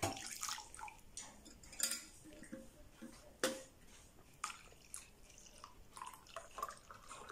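Hot milk poured from a stainless-steel kettle into glasses: faint dripping and splashing, with scattered short sharp ticks.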